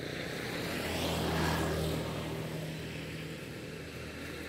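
An engine passing by, a steady low drone that swells to its loudest about a second and a half in, then slowly fades.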